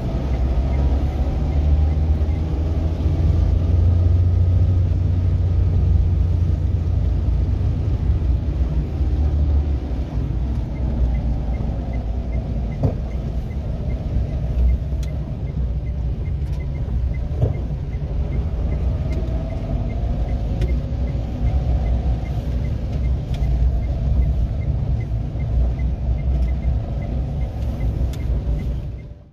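Steady low rumble of a car's engine and tyres heard from inside the cabin while driving on a rain-soaked road, with the hiss of tyres on wet tarmac.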